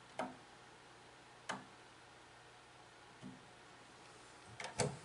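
Single-pole wall toggle switch clicking as it is flipped, two sharp clicks about a second and a half apart and a fainter one later, switching a split duplex outlet's lower receptacle on and off. A cluster of louder knocks and clatter near the end.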